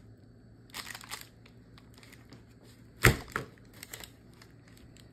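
Hard-set chocolate slab with puffed grains being broken into. A short run of crackles about a second in, then one sharp loud crack about three seconds in, followed by a few smaller cracks.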